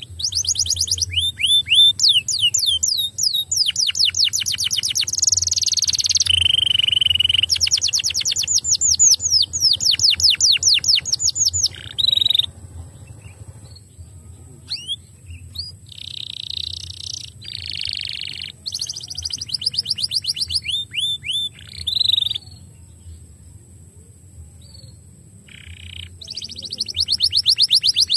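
Canary singing fast trills of rapidly repeated, high sweeping notes in long rolling phrases. The song breaks off about halfway through into shorter phrases and scattered single notes, then comes back in full trills near the end.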